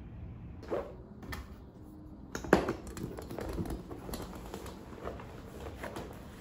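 Things being handled and packed into a canvas tote bag on a desk: scattered light taps, knocks and rustles, the loudest knock about two and a half seconds in.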